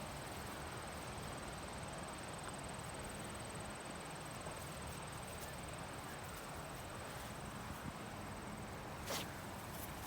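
Steady wind noise, with a faint steady high-pitched tone throughout and one short sharp rustle or scrape about nine seconds in.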